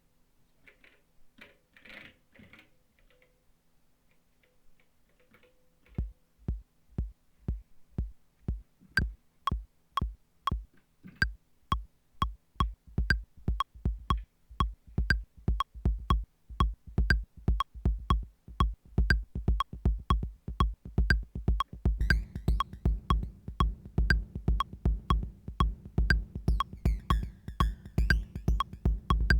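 Elektron Digitakt II drum machine playing a programmed beat. After a few seconds of faint clicks, a kick drum starts about six seconds in, hitting steadily about twice a second. A short pitched blip joins a few seconds later, and a sustained low synth layer with quick high ticks comes in near the end.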